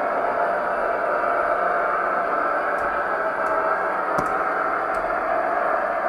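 Gauge 1 model diesel railcar, a Märklin VT 04.5, running along the track: the steady hum and rolling of its motor and wheels on the rails, with a single click about four seconds in.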